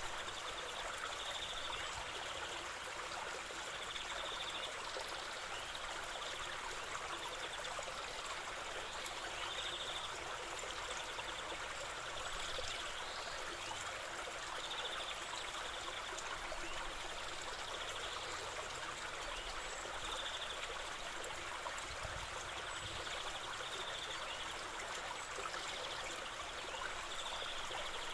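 River water flowing and trickling over stones, a steady rushing. A short high trill recurs every two to three seconds over the water.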